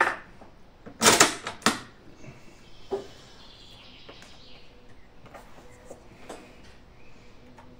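Mauser bolt-action rifle being loaded: a click, then about a second in a loud metallic clatter with a second clack as the bolt is worked and a cartridge chambered, a lighter click near three seconds, and faint handling clicks afterwards.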